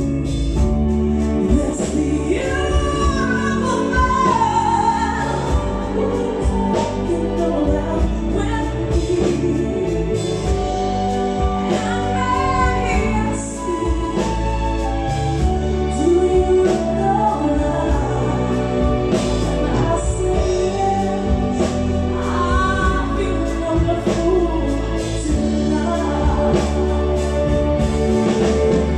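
A woman singing live with a band backing her, her voice sliding between held notes over steady band accompaniment.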